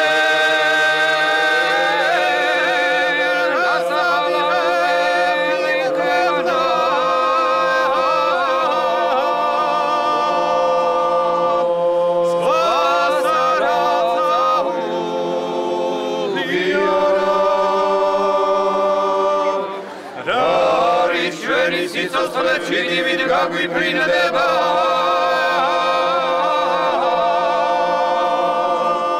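A small group of men singing a traditional Georgian song a cappella in several parts, the upper voices moving over a steady held low note, with short breaks between phrases.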